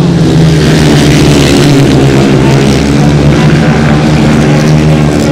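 Several grasstrack racing motorcycles with 500cc single-cylinder engines running hard in a race: a loud, steady engine note that changes little in pitch.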